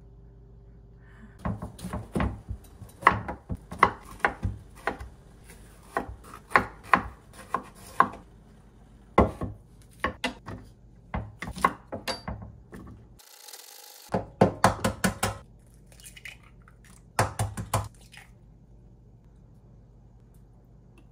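Kitchen knife chopping onion and bell pepper scraps on a wooden cutting board: quick, irregular knocks in runs with short pauses between. The chopping stops a few seconds before the end.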